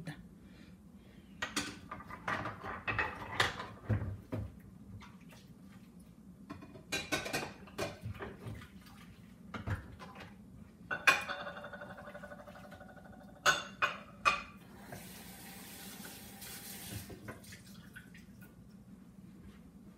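Kitchen clatter: pots, dishes and utensils knocked and clinked. A little past the middle one metal strike rings on for about two seconds, followed a few seconds later by a short spell of running water, over a steady low hum.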